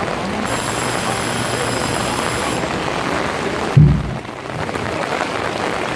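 Heavy rain falling steadily in a continuous hiss. About four seconds in there is a single short, loud, deep thump.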